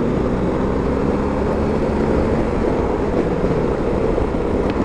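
BMW R1250 GS Adventure motorcycle riding at road speed: its boxer-twin engine running steadily, mixed with wind and road noise on the microphone.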